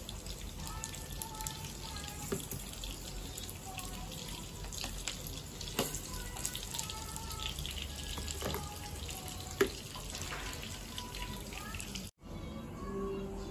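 Kitchen scissors cutting grilled meat, with a few sharp clicks of the blades and metal utensils against a plastic plate over a steady hiss of background noise. The sound cuts off suddenly near the end.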